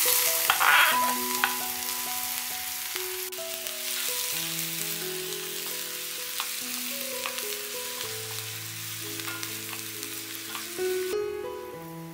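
Chopped red onion hitting hot oil in a stainless steel pan: a sharp sizzle as it goes in, then steady frying while a wooden spatula stirs it, with small scrapes and clicks. The sizzle cuts off near the end.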